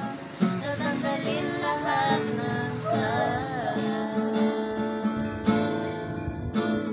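Acoustic guitar strummed while two women sing a Tagalog worship song, their voices wavering in long held notes over the chords.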